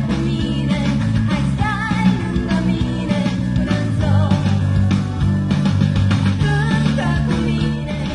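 Pop-rock song with singing over guitar and a steady beat.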